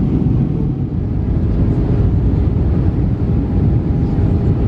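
Steady low rumble of engine and airflow noise inside the cabin of an Airbus A320 descending to land, with a faint steady hum joining about three seconds in.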